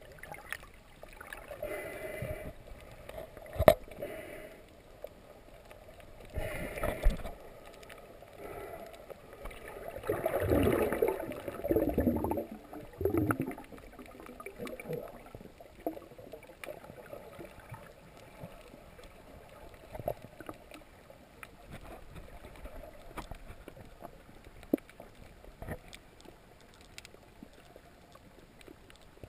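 Muffled underwater sloshing and gurgling of water heard through a GoPro's waterproof housing while snorkeling, with a sharp knock about four seconds in and louder bursts of churning water around ten to thirteen seconds in.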